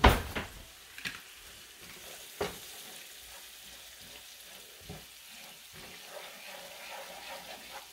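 A wooden slotted spatula stirring food sizzling in a metal skillet, with a steady sizzle and sharp knocks of the spatula against the pan, the loudest at the very start, then about 1, 2.5 and 5 seconds in.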